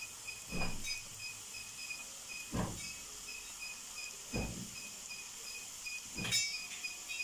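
Seeni bello dough deep-frying in hot oil in a metal pan: a steady sizzle, with four soft low thumps about two seconds apart.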